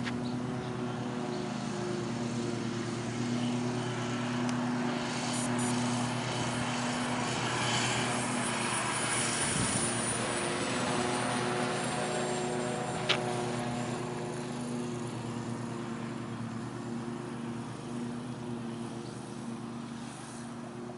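Radio-controlled 2.0 m T-28 model airplane in flight, its motor and propeller running at a steady pitch under a rush of air that swells for a few seconds in the middle. There is a single sharp click about 13 seconds in.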